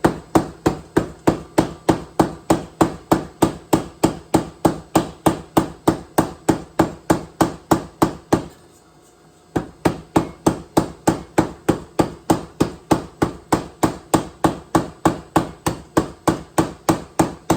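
Anyang 106 self-contained air power hammer striking a hot Damascus billet in a steady run of about three blows a second. It stops for about a second partway through, then starts again, and it stops at the end.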